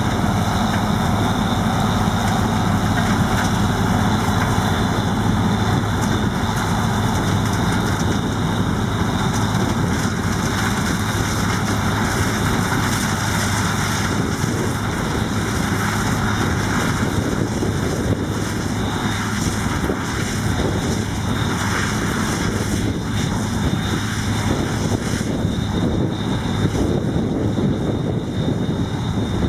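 New Holland CX-880 combine harvester running steadily while harvesting corn: a loud, continuous machine drone that holds even throughout.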